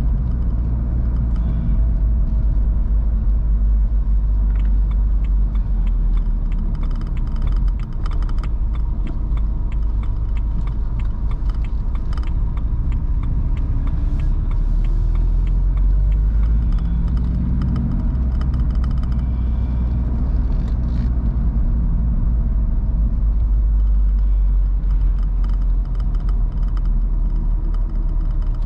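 BMW roadster driving on the road: steady low engine rumble with tyre and wind noise, the engine note rising and falling a few times with speed and gear changes.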